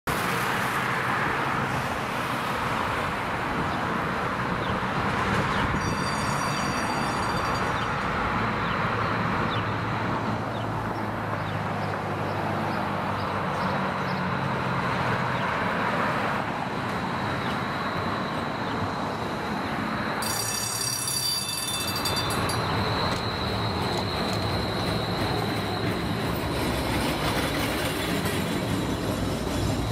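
Electric streetcar approaching along street tracks amid steady city traffic noise, then passing close by. Brief high ringing squeals sound twice, and a steady high-pitched squeal from the rails sets in about two-thirds of the way through.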